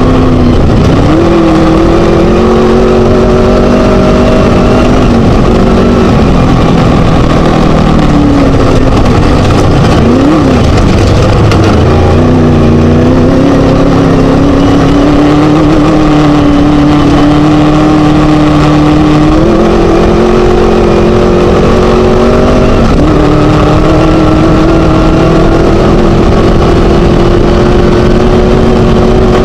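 Class 1 desert race buggy's Scat engine running hard under load, its pitch climbing slowly and then stepping abruptly several times, with one quick dip and recovery near the middle, over a constant loud rumble and rattle.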